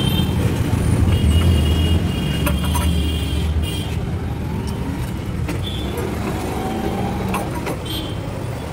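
Street traffic noise: a motor vehicle's engine rumbling close by, strongest in the first few seconds and easing off, with a few faint short high tones now and then.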